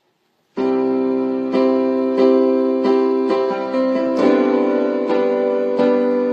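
Instrumental piano intro of a pop song: struck chords ringing on, starting about half a second in.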